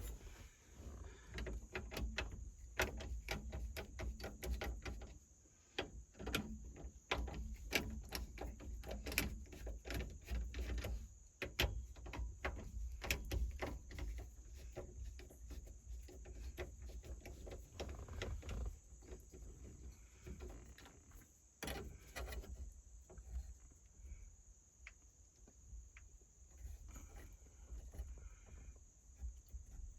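Irregular clicks and knocks of hand work on a truck's steering column: the parts of a new turn signal switch being handled and fitted, which still rubs hard in the column. The knocks come thick for the first half and thin out after that.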